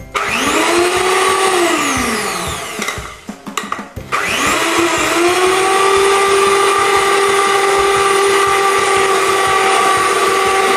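Electric hand mixer running, its beaters whirring through a batter of eggs, margarine, sugar and milk in a steel bowl. The motor spins up, winds down about two seconds in, starts again about four seconds in and then runs steadily at one pitch.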